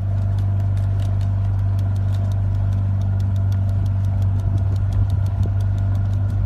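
A motor running steadily with a low hum, fading in at the start, with a fast, even ticking of about six clicks a second over it.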